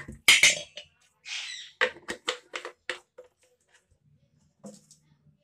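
A quick run of sharp metal clinks and knocks, a ladle striking and scraping a steel kadai while stirring, loudest near the start and dying away after about three seconds, leaving a faint low hum.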